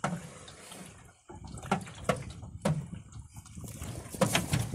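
Water splashing and sloshing in a run of irregular strokes, several in a few seconds.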